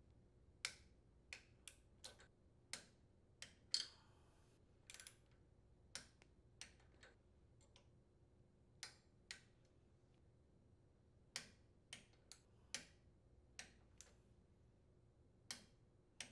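Torque wrench and socket on the cylinder head bolts of a Briggs & Stratton riding mower engine: about twenty sharp metallic clicks, spaced unevenly, as the bolts are brought to 150 inch-pounds in an alternating pattern.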